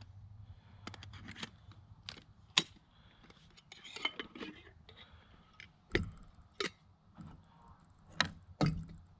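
Metal camp cookware being handled: a stainless cook container opened and a cup taken out and set down on a wooden picnic table, a string of separate clinks and knocks with a scraping rustle about four seconds in.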